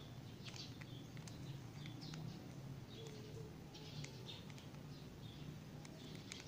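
Faint scattered clicks and short scratchy rattles of a plastic Rubik's cube being turned and handled, over a low steady hum.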